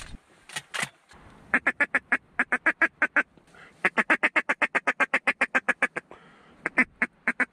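Duck quacking: fast runs of short, evenly spaced quacks, about seven a second, breaking off briefly twice and starting again.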